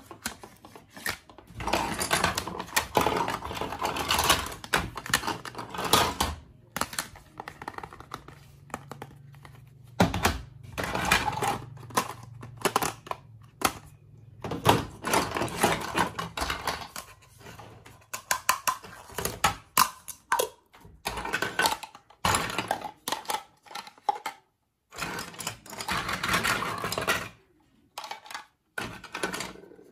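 Small plastic toy food and kitchen pieces clattering and clicking against each other and a plastic tray as they are handled and sorted by hand, in bursts of a few seconds with short pauses.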